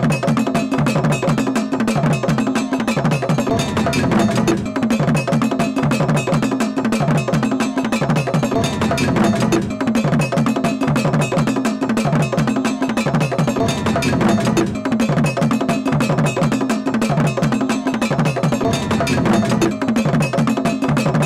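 Percussion music led by a struck iron bell playing a fast, steady pattern over a low drum figure that repeats about once a second.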